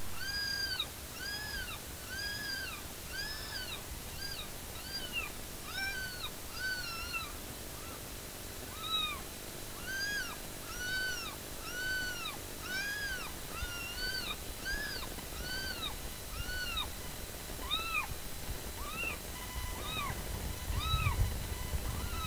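Electronic predator call playing a repeated animal distress cry to lure coyotes: a long series of high-pitched cries, each rising then falling in pitch, about one a second, spacing out near the end.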